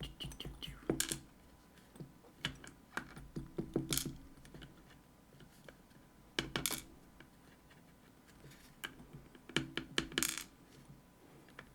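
Small metal lock parts and tools clinking and tapping on a hard surface as an Assa Guideline lock is taken apart. The sharp clicks come in short clusters, a few times.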